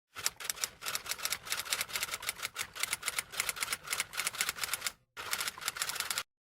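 Rapid typing: a fast, uneven run of sharp key clicks, several a second, with a brief pause about five seconds in and a last short run that stops about a second later.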